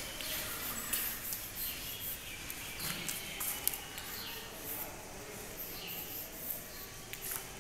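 Chalk scratching and tapping on a blackboard as words are written, a quick run of short sharp strokes, with a few brief high chirps among them.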